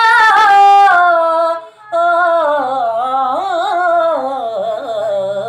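A man singing on an open 'aa' vowel, in the manner of a Hindustani alaap. He holds one long note with vibrato, breaks off about a second and a half in, then sings a wavering, ornamented run that slides gradually down in pitch.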